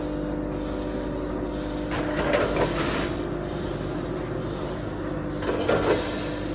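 Automatic rice weighing and packing machine running with a steady hum. Two louder rattling bursts come through, about two seconds in and again near the end.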